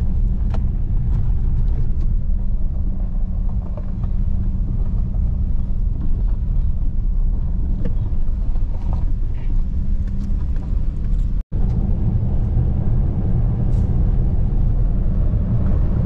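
Pickup truck driving on a rough dirt road, heard from inside the cab: a steady low rumble of engine and tyres, with scattered small knocks and rattles from the rough surface.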